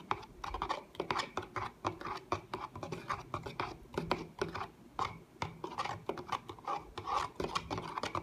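Metal spoon stirring liquid in a clear plastic cup, scraping and rubbing against the cup's wall and bottom in quick, uneven strokes, several a second. The liquid is sodium lauryl ether sulfate being dissolved into water, a step in mixing liquid handwash.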